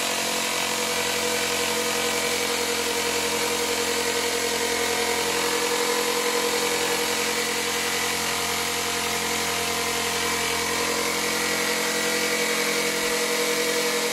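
Straight die grinder with a small sanding disc running at a steady high-pitched whine while sanding paint off a rust blister on a car's steel wheel arch, down to bare metal.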